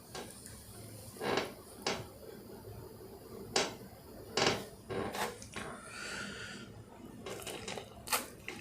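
Dishes and food containers being handled for a meal, with scattered sharp clinks and knocks spread irregularly through the stretch.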